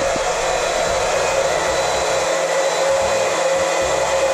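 A small electric motor running steadily, with a constant mid-pitched whine over a rushing hiss.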